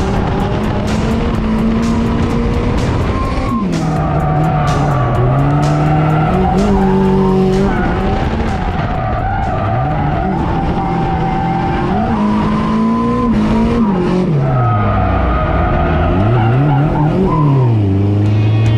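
Turbocharged drift car's engine revving up and down repeatedly through a drift run, heard from inside the cabin, with tyres squealing and skidding.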